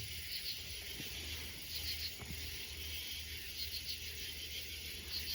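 Faint cricket chirping: short trains of high pulses repeating about every second and a half, over a low hum and hiss.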